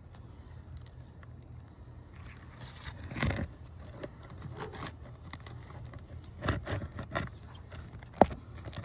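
A pry tool scraping and working under brittle asphalt shingles to pull roofing nails. There are short bursts of scraping and crackling about three seconds in and again around six to seven seconds, and a sharp click near the end.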